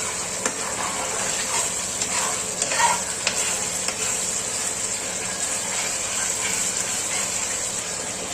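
Ginger, turmeric and jaggery paste frying in ghee in a pan, sizzling steadily as it is stirred, with a few light knocks of the stirring utensil in the first few seconds.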